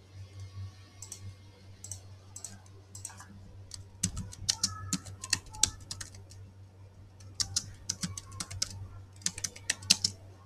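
Typing on a computer keyboard in quick runs of keystrokes, with short pauses between bursts. A steady low hum runs underneath.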